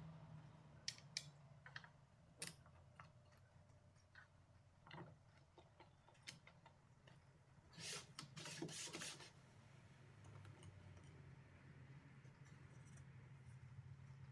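Scattered light clicks and knocks of small hard objects being handled, with a quick cluster of taps about eight seconds in, over a faint steady low hum.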